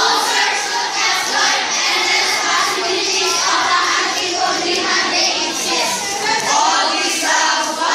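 A large group of young teenagers' voices singing and chanting together as a choir.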